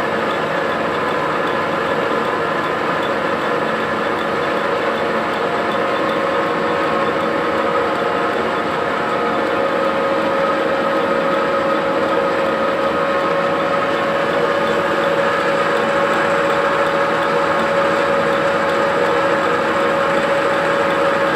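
Metal lathe running with a crankshaft turning in it while the cutting tool takes slow, light cuts to centre the crankshaft's end. It makes a steady mechanical hum with a whine that grows stronger about halfway through.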